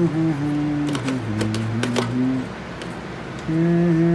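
A person humming a tune in held notes that step up and down, breaking off for about a second midway and then resuming. A few light clicks of plastic tools being handled in a hard case sound under it.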